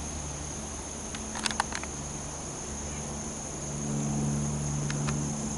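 Steady high-pitched insect chorus. A low hum swells about four seconds in, and a few sharp clicks come near the middle and toward the end.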